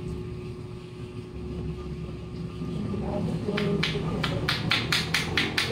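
Rapid, even slapping of palms pressed together, chopping on a bare shoulder in a hilot massage, about five strikes a second, starting about three and a half seconds in, over a low steady hum.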